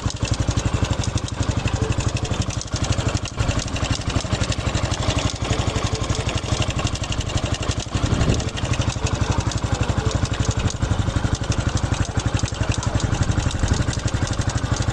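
Honda Pop 110i motorcycle's single-cylinder engine running with a fast, even pulsing beat. It makes the noise the owner calls terrible and unbearable, an abnormal engine noise on a brand-new bike.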